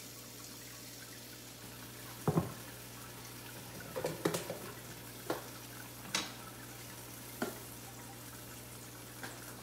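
Butter melting and sizzling in a hot nonstick frying pan: a steady hiss with a few short sharp clicks scattered through it.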